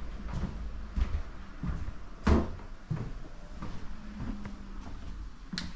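Scattered light knocks with one louder thud a little over two seconds in, over a steady low rumble.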